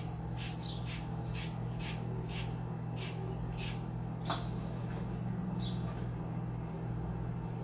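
Carrot being peeled with a handheld vegetable peeler: quick scraping strokes, about two a second, thinning out after about four seconds, over a steady low hum.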